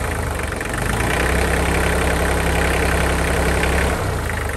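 Kioti DK35 tractor's diesel engine idling steadily, a little louder from about a second in until about four seconds in, then easing back. It keeps running without dying on a freshly changed fuel filter whose bowl isn't completely full.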